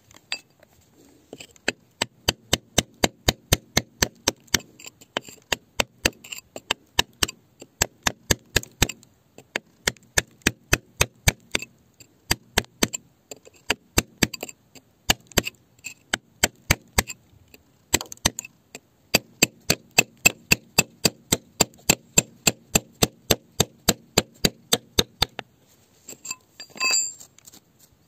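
A hammer striking a steel chisel into rock: sharp metallic taps at about three a second, stopping briefly now and then. Near the end there is a short ringing tone.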